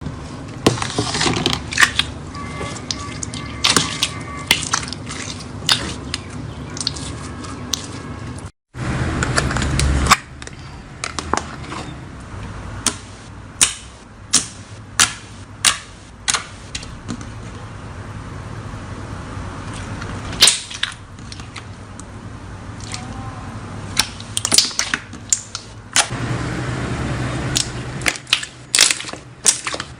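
Slime being squeezed and worked by hand, with many sharp, irregular pops and crackles over a steady squishy rustle.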